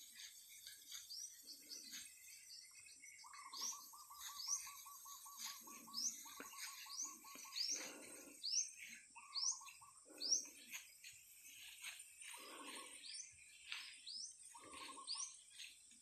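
Small birds calling in the open, with many short rising chirps and, in the middle, a fast rattling trill. Soft dull thuds come about every two seconds, and a faint steady high hiss runs underneath.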